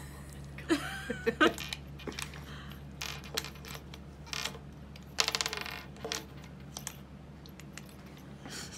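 Small Christmas ornament baubles and their wire hooks clinking and rattling against a tabletop as they are handled: a few sharp clinks about a second in, and a quick rattling run a little after five seconds.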